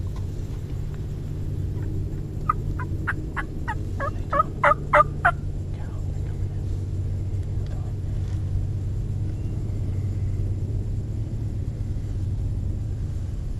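Turkey calling: a run of about a dozen short, quick notes about two and a half seconds in, growing louder and quicker over the last few.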